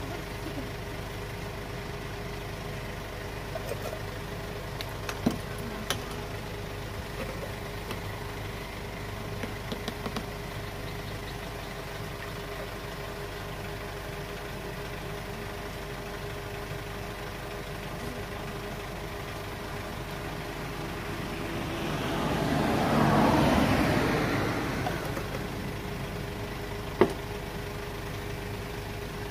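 Steady mechanical hum of street traffic and engines, with a vehicle passing that swells and fades over a few seconds near the end. A few sharp clicks stand out, one loud near the end.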